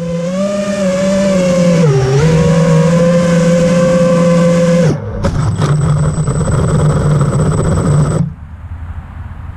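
Brushless motors and propellers of an FPV mini quadcopter on a 4S battery, whining as heard from the onboard camera. The pitch dips about two seconds in, the motors cut out briefly about five seconds in, then come back and stop near the end as the quad comes to rest.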